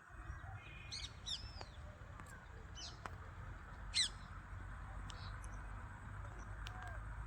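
Several short bird chirps and calls, the loudest about four seconds in, over a steady low rumble.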